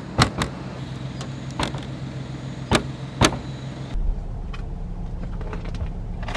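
Sharp clunks from a Kia Ray's tailgate and latch, five or six knocks in the first three seconds, as it is pushed shut but will not catch because its latch hook is already closed. A steady low car engine idle runs underneath, and about four seconds in it becomes a deeper drone, heard from inside the cabin.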